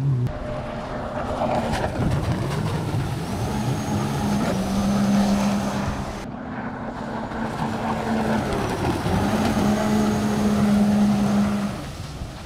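Racing jet ski engines running at speed across the water: a steady drone that holds for a few seconds at a time, then fades near the end.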